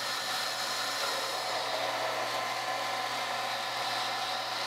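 A pump running steadily, circulating fluid through a clear acrylic power-steering reservoir model and its hoses: an even hum and hiss that holds level throughout.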